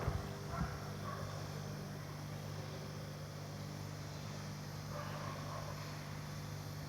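A steady low electrical hum, with two light knocks near the start.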